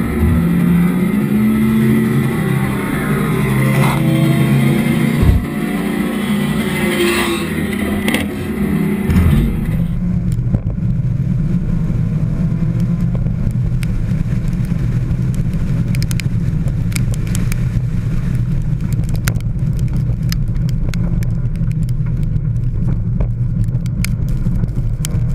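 Mitsubishi Lancer Evolution VII race car engine running hard on a dirt track, its revs rising and falling, with a sharp thump about five seconds in. About ten seconds in, the sound changes abruptly to a muffled, steady low engine drone with frequent sharp ticks, as heard from a rear-mounted onboard camera.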